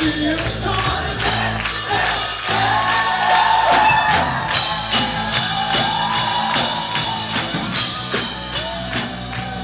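Upbeat worship music with singing over a steady drum beat.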